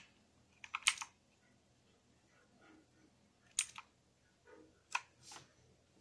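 Keys on a Redragon K580 VATA mechanical keyboard being pressed, clicking in three short groups: about a second in, at about three and a half seconds, and around five seconds.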